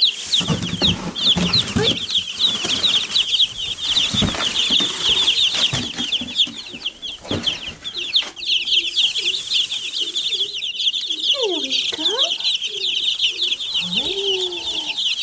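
A brood of Wyandotte bantam chicks peeping without pause, many quick, high-pitched, falling peeps overlapping. A few dull knocks and rustles in the straw come in the first half.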